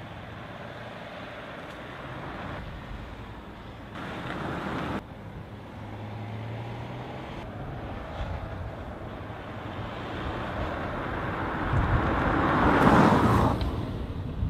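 A Volkswagen up! with a 1.0-litre three-cylinder petrol engine driving past at low speed. Its engine and tyre noise grow louder as it approaches and peak as it passes near the end, with an abrupt jump in the sound about five seconds in.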